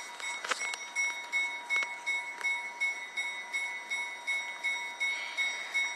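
A railroad bell ringing steadily, about three strokes a second, as a train backs slowly past. A few sharp clacks come in the first couple of seconds.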